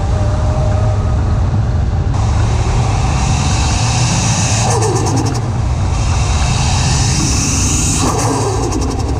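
Toyota Chaser's 1JZ-GTE turbocharged straight-six, run with no exhaust, pulling under boost with a rising turbo hiss. Twice, about five seconds in and again about eight seconds in, the revs drop off and the turbo flutters (compressor surge, 'dosing').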